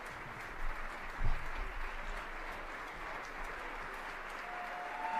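Audience applauding steadily, with a couple of dull thumps about a second in and a whistle-like tone coming in near the end.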